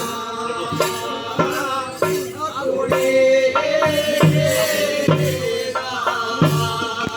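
Theyyam ritual music: a held, wavering melodic line over a steady drum beat with rattling percussion.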